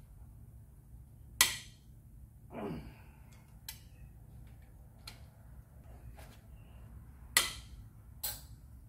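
Hand tools working the bolts of a Pontiac 350 V8 short block: a few sharp metallic clicks and knocks, the loudest about a second and a half in and two more near the end, with a short exhale about a third of the way through.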